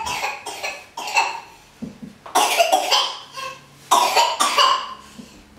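A person's voice in several short bursts, each under a second long, with quiet gaps between them.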